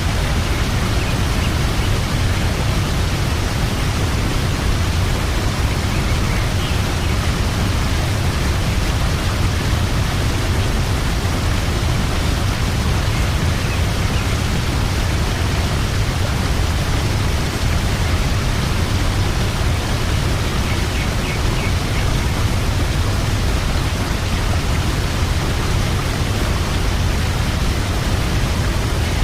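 Waterfall rushing steadily, with a few faint bird chirps now and then.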